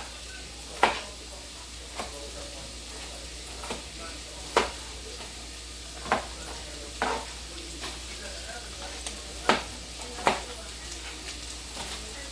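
Chopped vegetables sizzling in a pan while being stirred, with a steady frying hiss. A utensil knocks against the pan with sharp clicks about every one to one and a half seconds.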